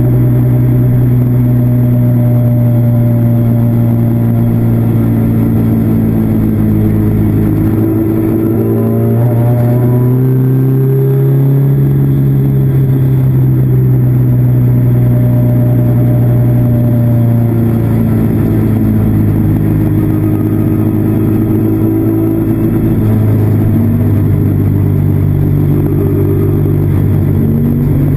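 Classic Mini race car's BMC A-series four-cylinder engine running hard at high revs, heard from inside the cabin. The engine note holds steady for long stretches, then dips and climbs again several times, most clearly about a third of the way in and again near the end.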